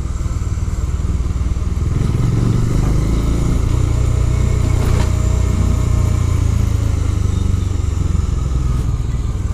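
Bajaj Dominar 400's single-cylinder engine running steadily under way, a low even drone.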